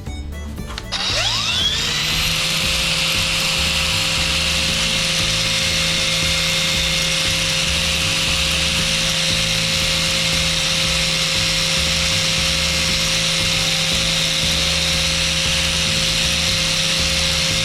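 Electric power sander starting up about a second in, its motor whine rising and then settling to a steady pitch. It then runs steadily with a hiss above the whine, as it works from coarse 240-grit abrasive toward finer grits on the rusted kitchen-knife steel.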